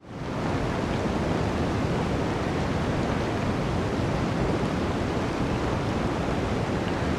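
Blizzard wind blowing, a steady rushing noise heaviest at the low end, fading in over the first half second.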